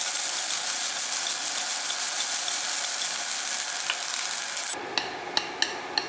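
Fried rice sizzling in a nonstick wok while it is stirred with chopsticks. About three-quarters through the sizzle cuts off suddenly, leaving the chopsticks clicking against the pan about three times a second.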